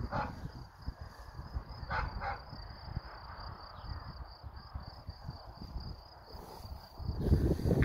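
Insects chirring: a steady, finely pulsing high-pitched trill. Wind rumbles on the microphone throughout and grows louder near the end, and three short cries come near the start and about two seconds in.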